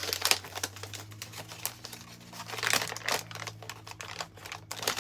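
A bag being opened and rummaged through by hand: irregular crinkling and rustling, with a faint steady low hum underneath.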